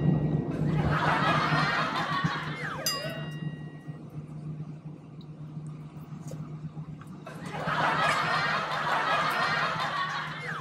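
Comic cartoon snoring sound effect, a long rasping snore ending in a quick falling whistle, heard twice, over a steady low cabin hum.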